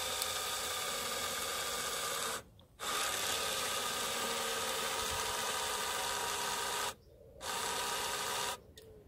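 Electric wing-mirror adjustment motor running with a steady whirr, just mended by plastic-welding its mount. It stops briefly about two and a half seconds in, runs again, pauses about seven seconds in, then runs a little more and stops shortly before the end.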